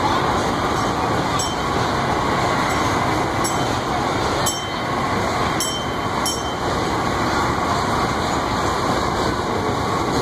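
Kiddie boat ride running: a steady rumbling, rattling noise from the ride's drive and the boats moving through the water channel, with a few faint clicks.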